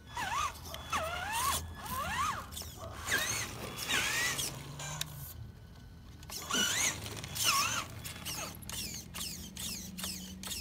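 Traxxas Summit RC truck's electric motor and geared drivetrain, running on a 4S battery, whining in a series of short throttle bursts, each rising and falling in pitch, as the truck crawls onto a steel ladder ramp. There is a short lull about halfway through.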